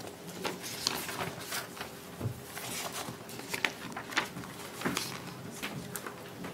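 Meeting-room background: scattered light clicks, taps and rustles at irregular intervals over a faint steady hum.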